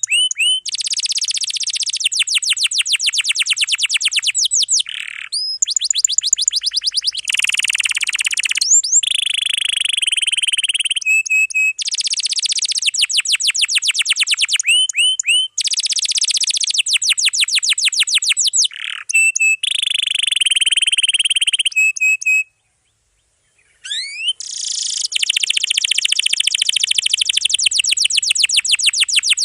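Canary singing fast trills and long rolls in a dense, unbroken song, each phrase a rapid run of repeated high notes. It stops for about a second and a half near the end, then starts again.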